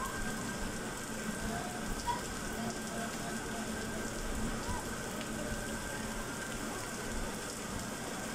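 Heavy rain pouring down and splashing onto a water-covered street, a steady even hiss of the downpour.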